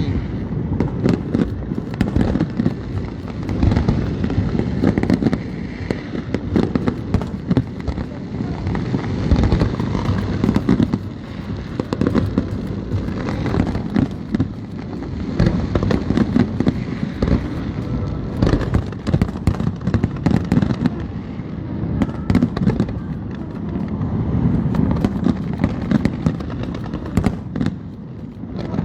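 Aerial fireworks display going off continuously: a dense run of booms and sharp bangs over a low rumble, with crackling shells.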